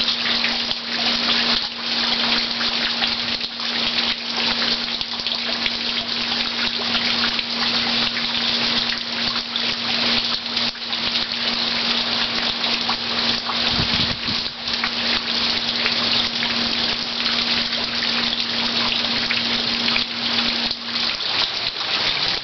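Heavy rain falling steadily, with water streaming off the roof edge, under a steady low hum that stops near the end.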